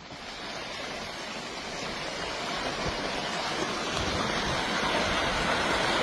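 Landslide debris rushing downhill: a steady, river-like rush that slowly grows louder.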